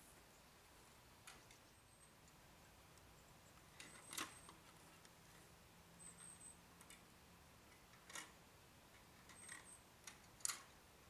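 Near silence broken by a few faint clicks and knocks, the loudest a little past four seconds in and one near the end: a metal farm gate's fastening being worked at a distance. A few faint short high chirps come and go.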